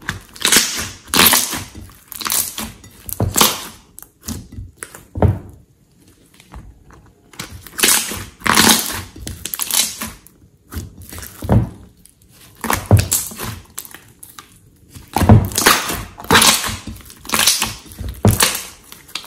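Thick slime being kneaded, squeezed and stretched by hand: irregular wet squelches and crackling pops as air trapped in its folds is pressed out, coming every second or so with a short lull about six seconds in.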